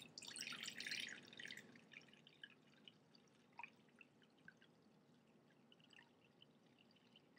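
Water poured into a bowl in a short splashing stream of about a second and a half, followed by scattered drips.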